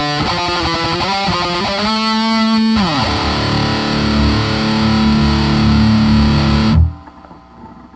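Distorted electric guitar played through a Vox combo amplifier. A quick run of notes ends in a held note that slides down in pitch about three seconds in. A low chord then rings until it is cut off abruptly near the end, leaving a faint hum.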